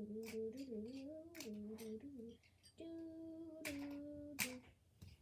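A girl humming a wordless tune, the melody wandering up and down, then breaking off about halfway through before two long held notes. Light clicks of colored pencils and markers being handled and sorted sound over it.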